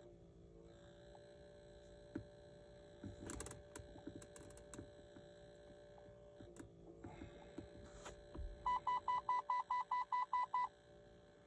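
A rapid run of about a dozen short electronic beeps, around six a second, lasting about two seconds near the end. Before it come scattered light clicks and taps, over a faint steady electrical hum.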